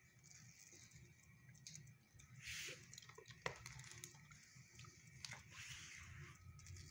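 Near silence: faint room tone with two soft, brief hisses and one light click about halfway through.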